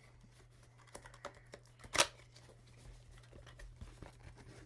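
Packaging being handled while a product box is opened: light scattered clicks and rustles, with one sharper click about two seconds in, over a steady low hum.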